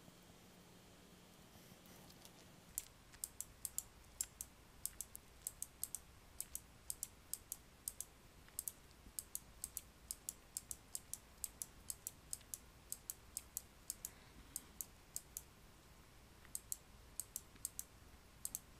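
Computer keyboard keys clicking in quick, irregular runs, several strokes a second, starting about three seconds in and stopping briefly for a couple of seconds in the later part.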